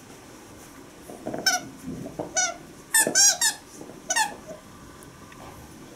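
A beagle chewing a squeaky toy, which squeaks about five times in short wavering bursts, the middle ones coming in quick succession.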